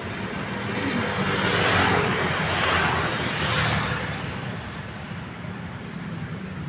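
Bus driving past, its engine and tyre noise swelling to a peak about two to three seconds in, then fading.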